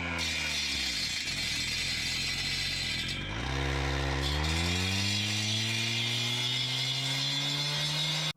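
An engine-powered machine running hard: its pitch drops as the engine lugs under load about a second in, then climbs back to a steady high speed by about five seconds in, with a rattling clatter on top.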